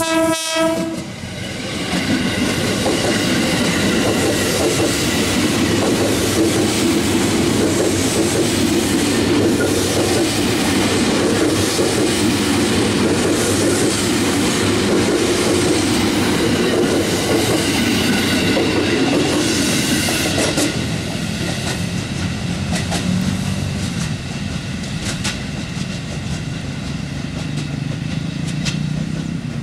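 KRL Commuter Line electric multiple unit (ex-Japanese 205 series) passing close by: the end of a horn blast right at the start, then the steady rumble and clickety-clack of its wheels over the rails for about twenty seconds. After that it fades to a quieter rail noise as the last cars go by.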